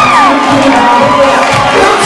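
A crowd cheering, shouting and whooping, many voices at once, with music playing underneath.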